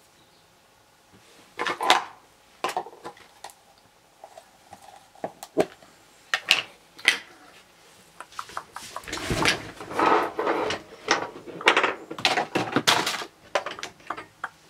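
Craft supplies being handled on a wooden desktop: paper and card rustling, with scattered clicks and knocks as a plastic ink pad case and a small plastic box are set down and opened. A denser stretch of rustling and clattering runs from about nine to thirteen seconds in.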